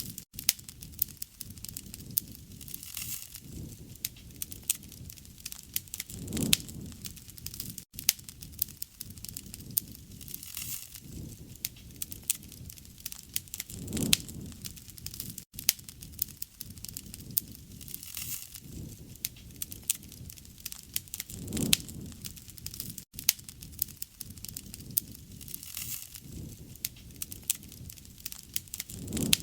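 Wood fire crackling, with a dense run of small sharp pops and snaps throughout. A soft low rush swells up about every seven or eight seconds.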